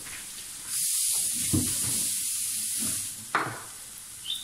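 Chopped onions, garlic and green chillies sizzling as they fry in oil in a large metal pot, being browned. The sizzle grows louder about a second in and eases off after about three seconds, with two short knocks.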